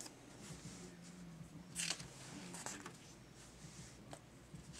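A page of an old book being turned by hand: a soft papery swish about two seconds in, with a smaller rustle shortly after.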